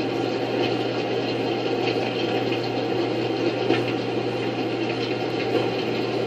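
Steady noise with a constant low hum underneath and a few faint ticks, unchanging throughout.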